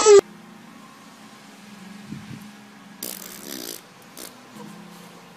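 A baby's loud crying breaks off abruptly. Then faint room noise follows, with a brief raspy burst about three seconds in and a couple of soft knocks.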